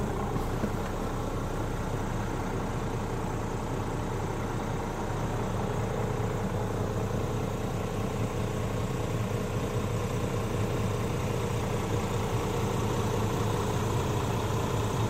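Scania R450's 13-litre inline-six diesel idling steadily, heard from inside the cab.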